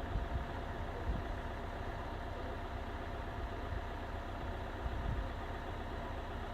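An idling engine: a steady low rumble and hum without sharp knocks.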